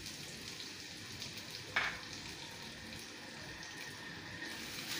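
Chopped onion, just added to hot oil in a pan, sizzling steadily, with a single sharp click a little under two seconds in.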